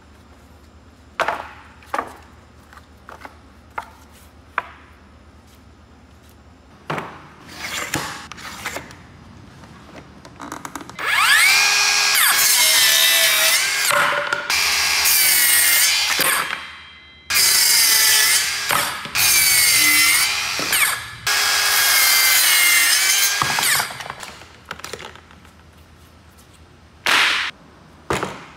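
Walnut boards knocking as they are handled, then a Worx WORXSAW compact cordless circular saw cutting through a walnut board in three long runs, its motor whine dipping under load, followed by a few more knocks of wood.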